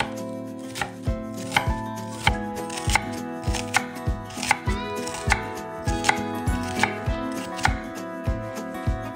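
A kitchen knife chopping food on a cutting board in sharp, unhurried knocks, about two a second.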